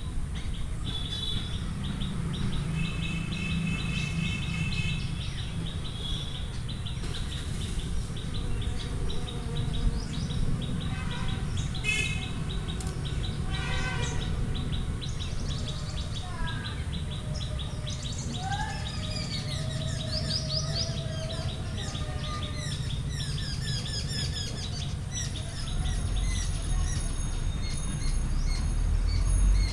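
Birds chirping and singing, with short repeated notes, trills and rising whistles, over a steady low background rumble.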